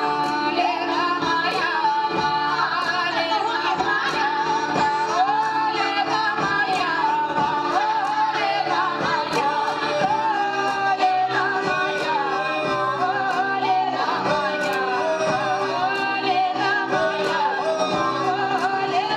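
A Ukrainian folk group performing live. Women sing in wavering, ornamented lines over a held cello drone, with regular percussion strikes.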